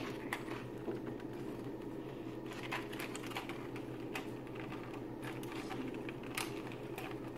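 A clear plastic bag of small plastic doll accessories being handled and pulled open by hand: irregular crinkling and small clicks and taps. A steady low hum runs underneath.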